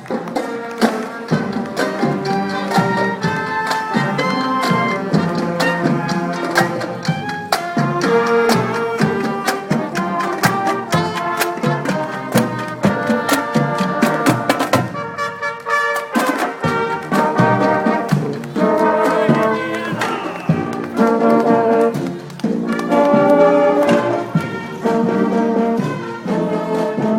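Marching band playing in a parade: brass melody of trumpets and trombones over a steady drum beat, the brass dropping out briefly about halfway through.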